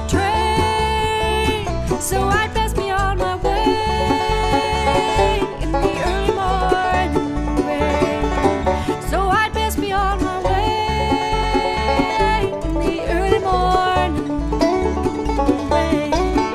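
Bluegrass band playing an instrumental break, with long held melody notes over a steady bass beat.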